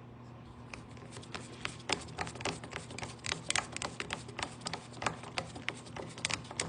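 A paste-waxed brass screw being driven into wood with a hand tool: a run of irregular sharp clicks and small creaks as it turns, a few per second, starting about a second in. A faint steady hum sits underneath.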